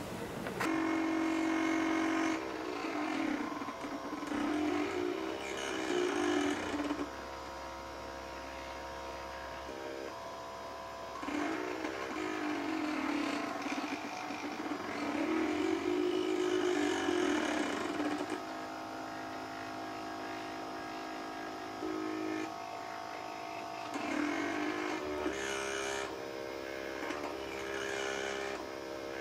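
MakerBot Thing-O-Matic 3D printer at work: its stepper motors whine in several tones as the extruder head and build platform move, the pitch sliding up and down and changing with every move, with short steady stretches in between.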